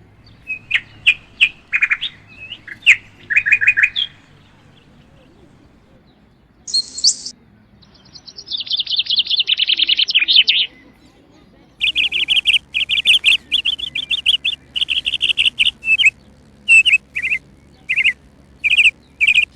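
Small birds chirping and singing in quick bursts, with a fast trill about eight seconds in and long runs of rapid chirps from about twelve seconds in.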